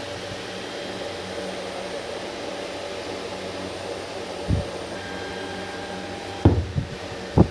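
Steady whirring hum of a small electric motor or blower, with a few knocks or handling thumps in the second half.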